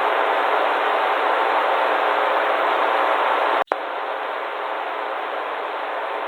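Steady static noise, a dead-channel hiss. It cuts out for an instant a little past halfway and comes back slightly quieter.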